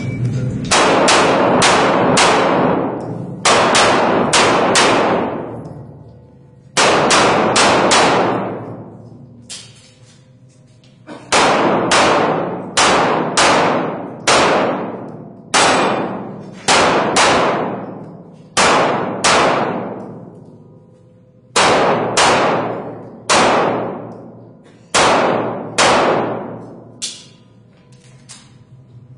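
Handgun shots fired rapidly in pairs and short strings during an IPSC practical shooting stage. Each shot has a long echoing tail. Brief gaps near the start and middle break up the strings, as the shooter moves or reloads.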